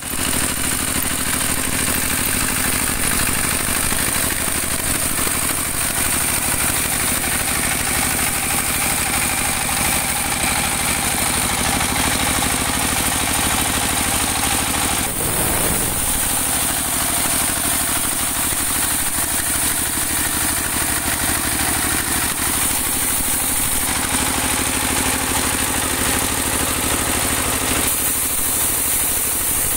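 Diesel engine of a mobile band sawmill running steadily, driving the saw through a gearbox. The running is steady, with a brief dip about halfway.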